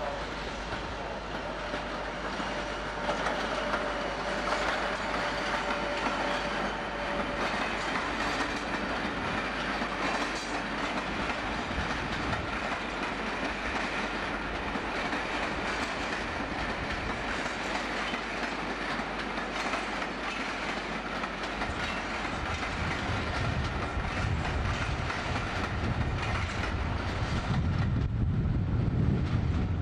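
Locomotive-hauled passenger train of British Rail coaches, drawn by an AC electric locomotive, rolling slowly across station pointwork. Its wheels click and clack over the rail joints and crossings, and a low rumble grows louder near the end as the coaches pass close by.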